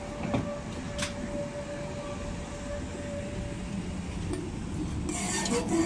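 Electric tram moving away over the crossing tracks: a steady motor whine fades out after about three and a half seconds, with a couple of sharp wheel clicks in the first second. Near the end a hiss of rail noise rises as another tram approaches.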